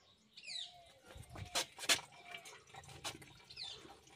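A bird chirping faintly twice, short falling notes, with a few sharp clicks or knocks in between.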